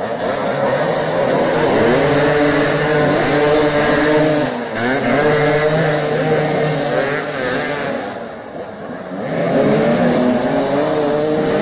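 Several motoball motorcycles revving hard as they jostle at close quarters, the engine pitch rising and falling again and again. The sound drops off briefly about eight seconds in, then picks up again.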